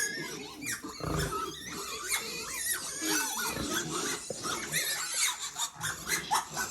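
Piglets and sows in pens squealing and grunting, many short high calls overlapping, with a couple of dull thumps about a second in and past the middle.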